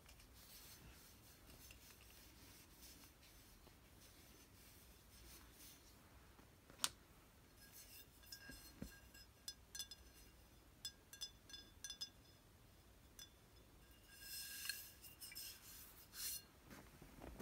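Glass wine bottles in a wooden rack being tapped and clinked, faint: a sharp click about seven seconds in, then a run of light taps that each ring briefly at a few set pitches, and a couple of quick clusters of clinks near the end.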